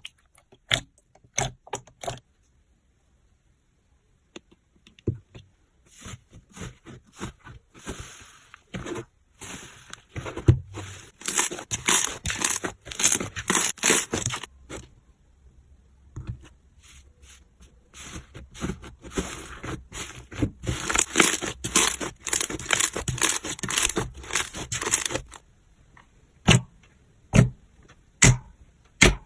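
Slime being handled: a few sharp clicks, a pause of a few seconds, then two long stretches of dense crackling and popping, and a few separate clicks again near the end.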